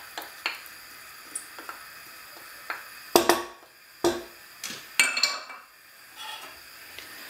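A wooden spoon knocking and scraping against a frying pan as sliced bell peppers and onion are stirred. Light clicks come first, then a few sharper knocks about three and five seconds in.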